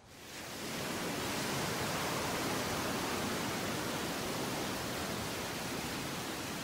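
Steady, even rushing noise that fades in over about the first second and then holds level.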